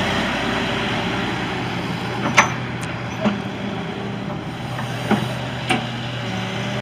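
The Isuzu diesel engine of a 2017 Hitachi ZX160 tracked excavator running steadily, with four short sharp knocks over it.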